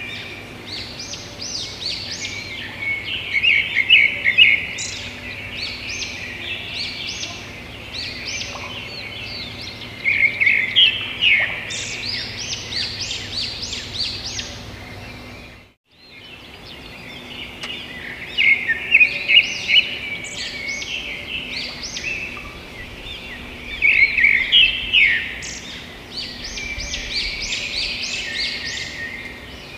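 Small songbirds chirping and trilling in quick high clusters. The birdsong cuts out for a moment about sixteen seconds in, then carries on.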